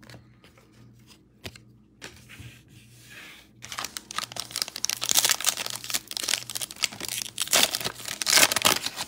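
Foil wrapper of a Panini Absolute Football card pack being torn open and crinkled by hand, starting about three and a half seconds in after a quiet start.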